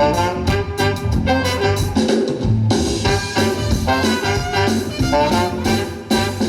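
A band playing music live, an up-tempo piece with horns and drums.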